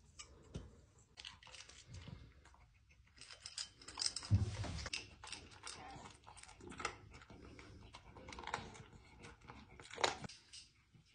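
Long-haired dachshund eating from its bowl: quick, irregular clicks and crunches of chewing, getting busier about three seconds in.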